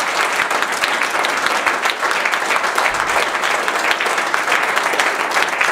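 Audience applauding: many hands clapping in a dense, even patter at a steady level.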